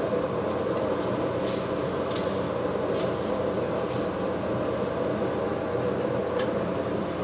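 Steady rush of a gas wok burner running under a steel wok, with a metal ladle lightly scraping and tapping the wok about five times as pig tails are stirred in sauce.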